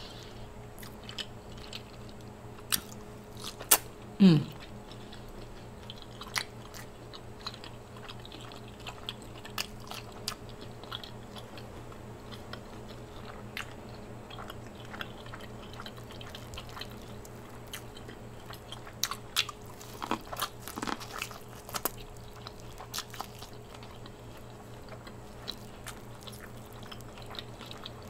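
Close-miked chewing and wet mouth smacks of a person eating shrimp, with scattered clicks throughout. There is a short vocal sound about four seconds in and a busier run of bites and smacks around two-thirds of the way through.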